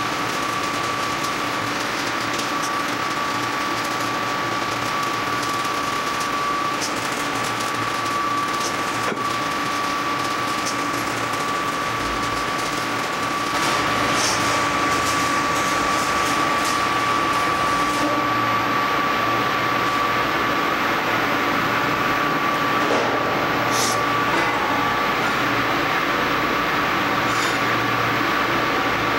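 Stick-welding (SMAW) arc crackling and hissing steadily as a fillet weld is run on a steel T-joint, over a steady high-pitched whine. It gets slightly louder about halfway through.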